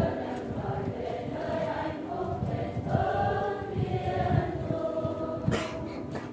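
A church choir singing a Catholic hymn, many voices held together in sustained lines.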